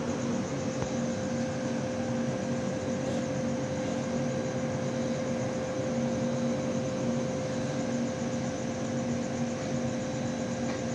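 Steady hum of a Howrah Rajdhani Express air-conditioned coach alongside, its rooftop air-conditioning plant running with a constant mid-pitched tone and a faint pulsing lower note, with no wheel clatter.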